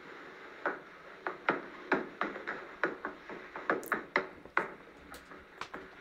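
AI-generated sound effect from the AudioLDM text-to-audio model, made from the prompt "a hammer is hitting a wooden surface". It is a run of sharp, irregular knocks, roughly two or three a second, over a steady hiss.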